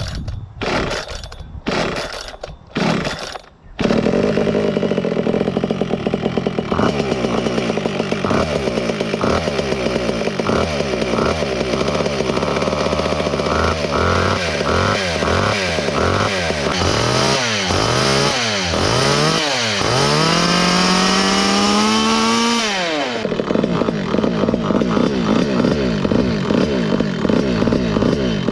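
Small two-stroke chainsaw pull-started with several quick cord pulls, catching about four seconds in and then running. From about halfway it is revved up and down repeatedly, with one long rising rev that drops off sharply, before it settles into a steadier run. This is the first run after its carburettor's main fuel hole was drilled out to about 2 mm and the float height reset, on E85.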